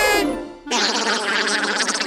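Cartoon soundtrack music and effects: a falling tone fades away in the first half second, then after a brief dip a dense, fast rattling sound starts and keeps going.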